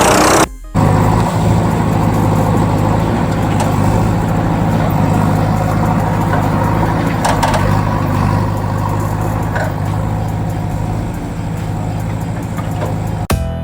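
Tractor engine running steadily at idle, with a short break about half a second in.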